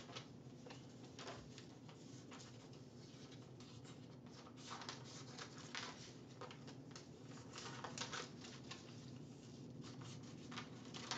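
Faint rustling and crinkling of sublimation transfer paper being handled and cut with scissors, with light irregular snips and crackles.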